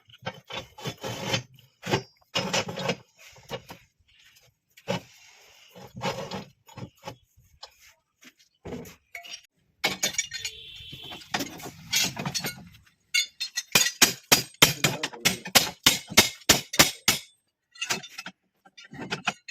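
Metal and wood construction work, with knocking and clinking. About two-thirds of the way through comes a quick run of strikes, about three a second, like hammering on formwork or steel bars.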